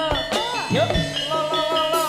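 Live jaranan ensemble music: steady struck metallophone notes and low drum beats under a melody line that bends up and down in pitch.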